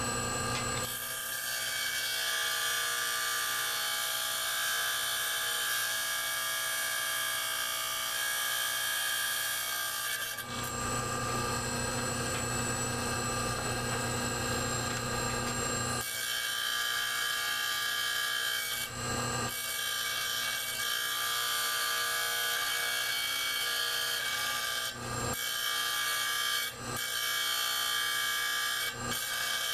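Labradorite slab being ground wet against the edge of a motor-driven lapidary wheel, a steady rasping grind over the wheel's running hum, trimming the stone down to its marked outline. About a third of the way in the grinding stops for several seconds, leaving only the wheel running, then resumes, with a few more brief breaks near the end.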